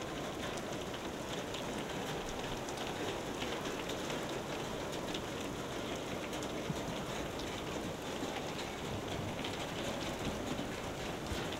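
Steady rain-like hiss with many faint, scattered pattering ticks.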